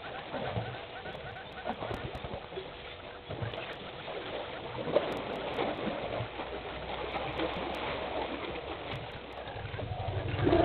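Elephants wading at the edge of a waterhole: sloshing and splashing water and trampled grass, with scattered small knocks. Near the end a vehicle engine's steady low hum comes in.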